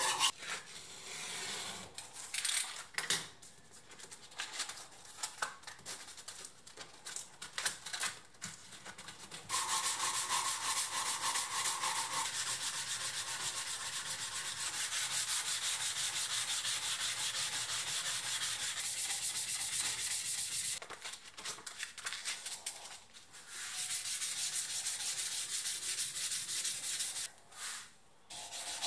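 Hand sanding of a screwdriver's steel shaft held in a bench vise, an abrasive sanding block rubbed back and forth along the metal to smooth it after rust removal. Slow, uneven strokes at first, then about ten seconds of fast, steady rubbing, a short pause and more strokes near the end.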